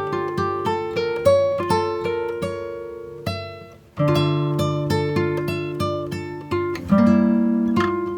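Background music: an acoustic guitar picking single notes and chords, which fades out briefly about four seconds in and then resumes with stronger strummed chords.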